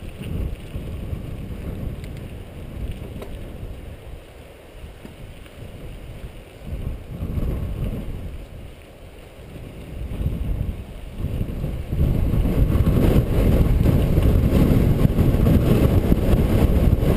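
Mountain bike riding over a dirt and rock singletrack, with tyre rumble, bike rattle and wind buffeting the camera microphone. The noise swells and fades, then gets steadily louder about twelve seconds in.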